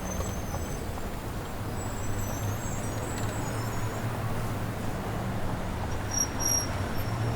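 Steady low rumble of a large motor vehicle or traffic, with short high squeals now and then, like brakes or metal on metal.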